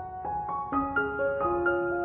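Background piano music: single notes struck every quarter to half second and left ringing.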